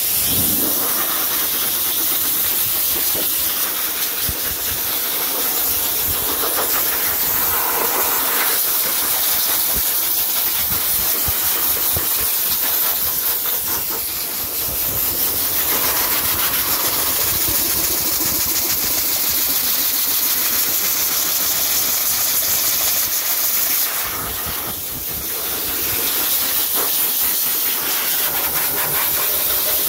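High-velocity pet dryer blasting air through its hose and nozzle onto a wet dog's coat: a loud, steady rush of air, dipping slightly twice as the nozzle is moved.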